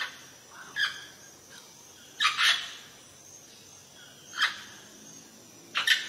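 Green parrot giving five short, loud calls, every second or two. The third and last are doubled.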